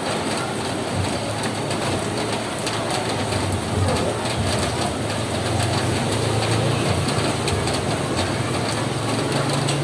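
Rain falling on a roof: a steady patter of many small drops. A low hum runs underneath and grows a little louder about halfway through.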